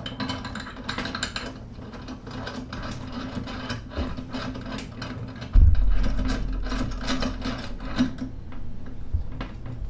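Rapid clicking of a hand tool ratcheting a fork bolt down into an SCS clamp on a scooter fork, with one low thump about halfway through.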